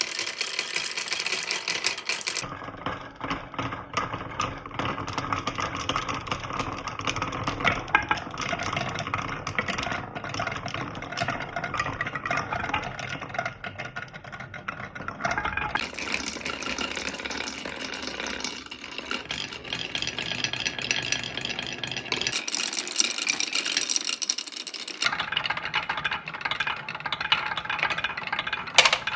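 Marbles rolling and clattering down a wooden marble run: a continuous rattle of rapid clicks and knocks, changing abruptly in tone several times.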